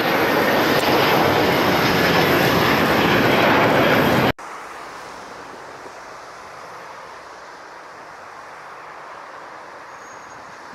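Airbus A330 jet engines at climb thrust: a loud, steady roar that cuts off abruptly about four seconds in. After the cut there is only a much quieter, steady rushing background.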